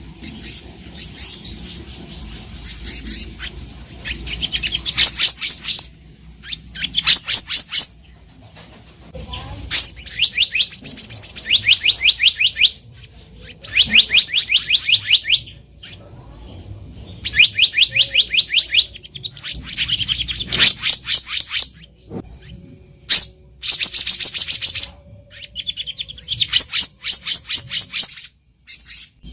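Black-naped monarch singing: bursts of rapid, sharp high notes, each run lasting one to two seconds and repeated every few seconds, about eight times.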